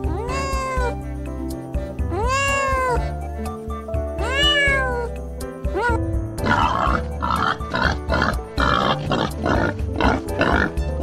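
A cat meowing: three long meows about two seconds apart, each rising then falling in pitch, then a short fourth one. About six seconds in, a young wild boar starts grunting quickly and repeatedly. Background music plays underneath throughout.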